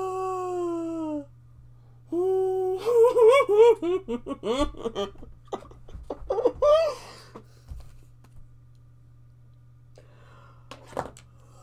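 A woman's wordless, overwhelmed vocal sounds: one long falling wail, then a run of high, warbling squeals and giggles, then a shorter squeal. She is overcome with emotion. A sharp click comes near the end, over a steady low electrical hum.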